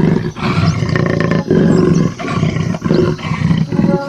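A recorded animal roar sound effect running under the video, one roar after another with hardly a break, each lasting about half a second to a second.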